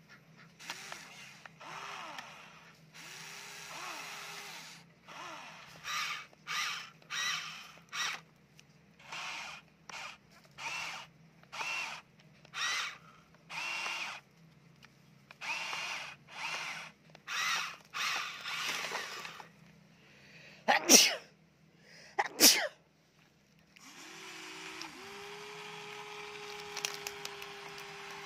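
Huina remote-control toy excavator's small electric gear motors whining in short stop-start bursts as the arm and bucket move. Two loud sharp knocks come about three-quarters of the way in. After them a motor runs in one long steady stretch.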